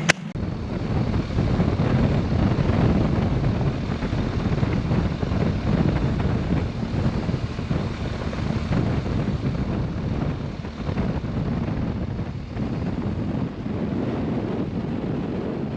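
Wind buffeting the microphone on a moving motorcycle: a steady, gusting rush heaviest in the low end, with road noise underneath.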